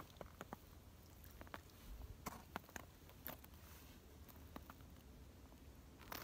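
Near silence: faint, scattered clicks and rustles from a man handling a short ice-fishing jigging rod and his snowsuit, over a low steady rumble, with a louder cluster of clicks near the end.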